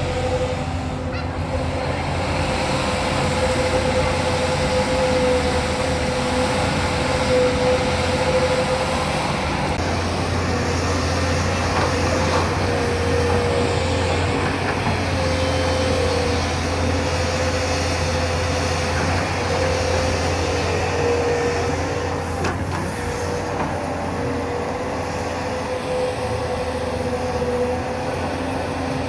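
JCB excavator's diesel engine running steadily under work, a low drone with a steady whine riding over it.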